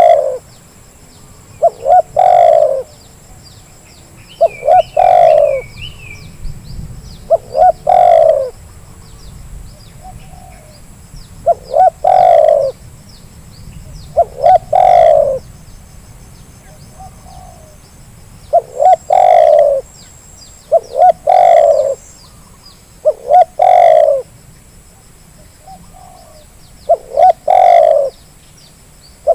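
Spotted dove cooing: a repeated call of short notes running into a longer coo, about every two to four seconds. Faint small-bird chirps sound in the background. This is a lure call for coaxing caged spotted doves to call.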